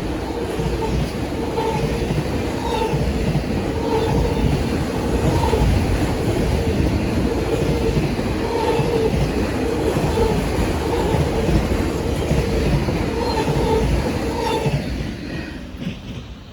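Freight train cars rolling past: a steady rumble with wheel clatter and a recurring squealing tone from the wheels. The sound falls away near the end.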